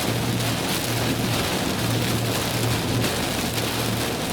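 Heavy rain and gusty wind hitting a moving car, heard from inside, over a steady low hum of road and engine noise.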